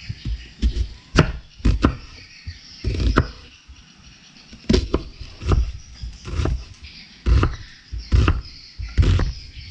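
A kitchen knife cutting an onion on a round wooden chopping board: the blade knocks against the board about a dozen times, unevenly spaced, as the onion is halved and diced.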